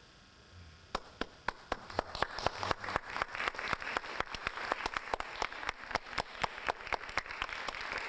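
Audience applauding: a few separate claps about a second in, quickly building into full applause, with one nearby clapper standing out at about four claps a second.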